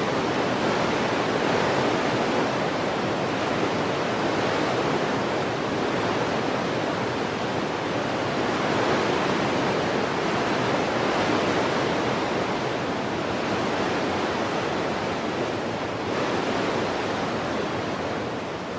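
Wind blowing, a steady rushing that swells and eases in slow gusts.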